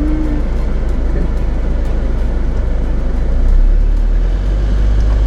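Jeep Wrangler driving, heard from inside the cabin: a steady low engine and road rumble that gets louder about three and a half seconds in.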